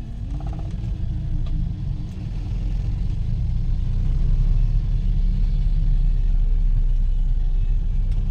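Steady low rumble of a vehicle on the move, engine and road noise, growing louder about four seconds in.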